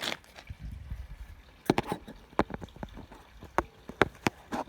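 A low handling rumble, then a series of sharp, irregular clicks and knocks as a mini moto's exhaust and parts are picked up and handled.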